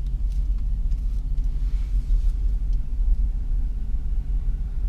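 Steady low rumble of a vehicle being driven, engine and road noise, with a few faint clicks.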